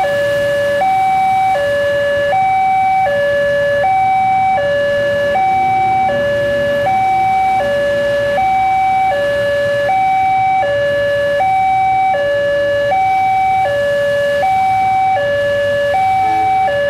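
Railway level-crossing warning alarm sounding an electronic two-tone signal, alternating a high and a low note about every three-quarters of a second, warning that the crossing is closed for a train.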